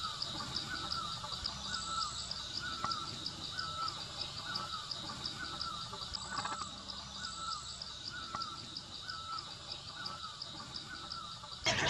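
Blue-throated barbet calling: a short bent note repeated steadily about one and a half times a second. A fast, high ticking runs underneath, about six ticks a second.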